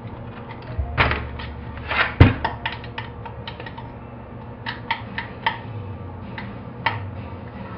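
Irregular metallic clicks and knocks as an Allen wrench is worked into the Allen screws of a Stihl S 10 chainsaw engine being taken apart on a metal tray.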